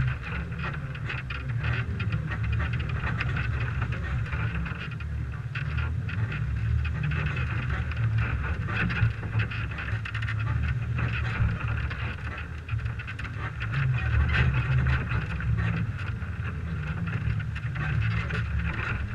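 A stock 1998 Toyota 4Runner driving over a dirt motocross track, heard from a camera on its hood: a steady low rumble of engine and tyres with scattered crackling above it.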